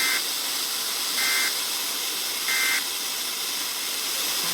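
Emergency Alert System end-of-message code on NOAA Weather Radio: three short two-tone data bursts about 1.3 seconds apart over steady radio hiss, marking the end of the tornado warning broadcast.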